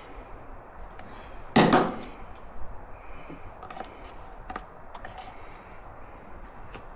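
One loud clatter about a second and a half in, then several light clicks and clinks: hand tools being handled while refitting the drain plug.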